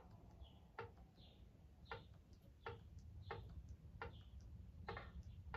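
Soft move clicks from a chess app on a TV as it replays a game, one click roughly every three-quarters of a second as each move is played.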